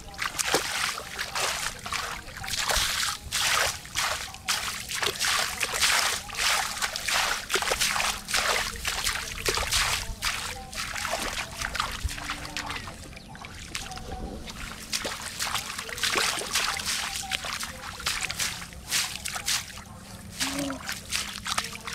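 Shallow water splashing and sloshing in quick, irregular bursts as someone wades barefoot and works through a flooded, grassy field.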